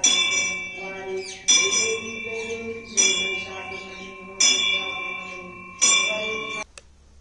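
Temple bell struck five times at an even pace, about a second and a half apart, each stroke ringing on with a bright metallic tone. The ringing cuts off suddenly near the end.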